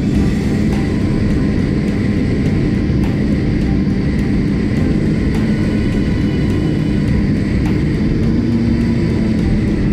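Snowmobile engines running steadily at speed across open snow, an even engine hum with no change in pitch.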